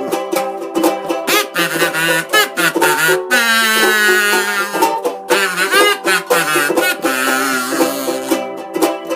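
Instrumental break of an old vaudeville song: a kazoo buzzes the melody, with one long wavering held note a few seconds in, over steady ukulele strumming.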